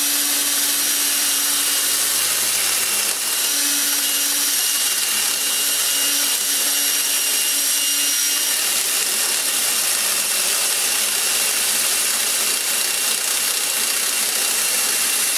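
Cordless drill running steadily, spinning a wooden disc while the teeth of a hand miter saw scrape against its edge, turning a groove into a homemade wooden pulley. The drill stops suddenly at the end.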